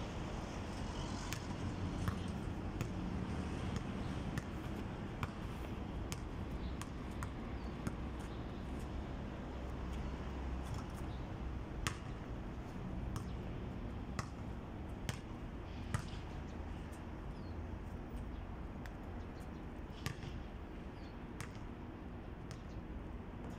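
A basketball bouncing on a concrete court and striking the hoop and backboard: a scatter of sharp, irregular knocks over a steady low rumble.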